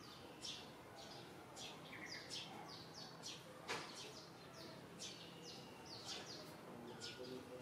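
Small birds chirping: quick, short, falling chirps several times a second over faint background noise, with one louder, sharper sound about halfway through.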